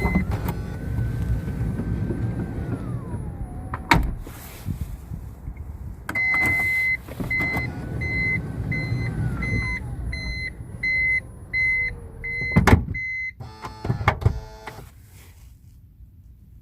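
Toyota Noah 80-series power sliding door running through two cycles. Each is a motor whine falling in pitch and ending in a thud as the door latches, and the second has a repeated beeping of about two to three beeps a second. This is the door the owner is showing for its abnormal noise.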